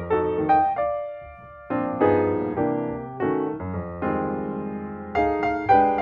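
Background piano music: a gentle run of struck notes and chords, each fading after it sounds, with a short lull about a second in.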